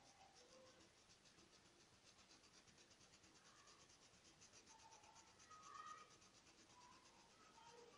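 Paintbrush scrubbing rapidly against a stencil edge on a terry face towel, a faint, even run of scratchy strokes at about six a second.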